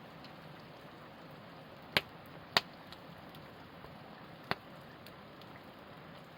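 Wood campfire crackling, with three sharp pops or snaps about two, two and a half and four and a half seconds in, over a steady low hiss.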